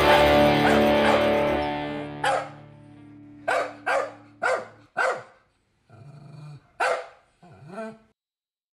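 A rock song's final chord rings out and fades over the first two seconds, then a dog barks about seven times, short separate barks at uneven spacing, the last one fainter.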